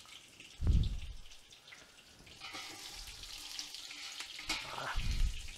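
Hot oil and meatball grease sizzling in a stainless steel stockpot as browned meatballs are lifted out with a slotted skimmer spoon. Two dull thumps come through it, a loud one about half a second in and a softer one near the end.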